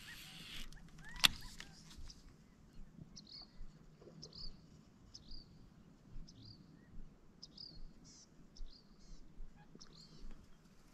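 A small bird chirping repeatedly, short high calls about once or twice a second, over faint quiet lake ambience. A single sharp click sounds about a second in.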